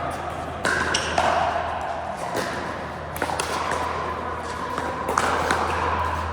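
Pickleball paddles hitting a plastic ball in an echoing indoor hall: a handful of sharp pops at uneven intervals.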